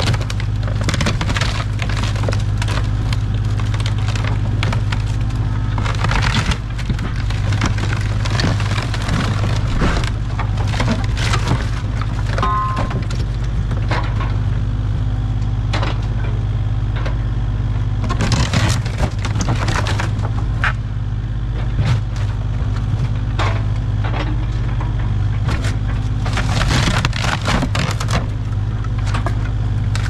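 Kubota KX057-5 mini excavator's diesel engine running steadily while its bucket smashes a wooden kiln apart, with repeated cracking and splintering of boards. The crashing of breaking timber comes in louder bursts about six seconds in, around eighteen seconds and again near the end.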